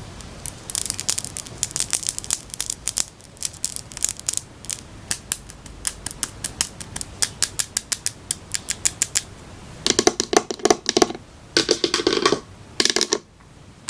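Scissors cutting into a cardboard shipping package: a long run of quick, crisp snips and scrapes. From about ten seconds in come fuller, louder crunching cuts.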